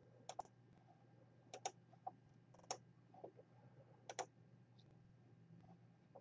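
Computer mouse clicking: about half a dozen short, sharp clicks, several coming in quick pairs, over a faint steady hum.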